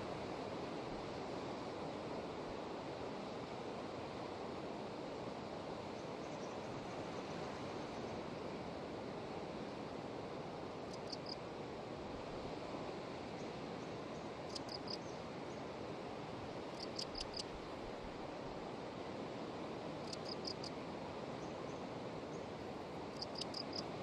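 Ocean surf breaking on a rocky shore below the cliffs: a steady wash of noise. From about halfway through, an insect chirps in short high clusters of a few pulses, about every three seconds.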